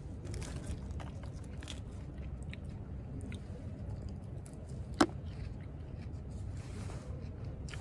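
Someone eating close to the microphone: chewing, with small clicks and scrapes of a wooden fork in a glass food container. One sharp click stands out about five seconds in.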